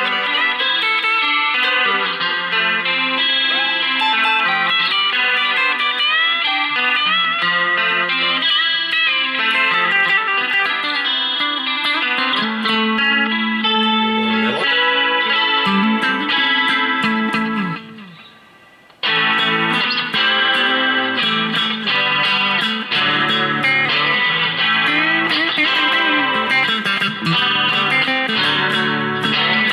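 Telecaster-style electric guitar played through an amp: single notes and chords with string bends. The sound dies away about 18 seconds in, and the playing starts again abruptly a second later.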